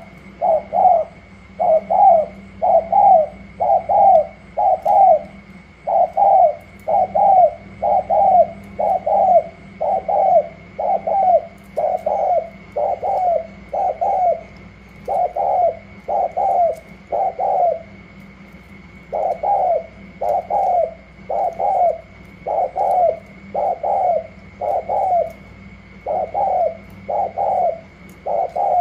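Spotted doves cooing: short doubled coos repeated rapidly, about one a second, with one brief pause about two thirds of the way through.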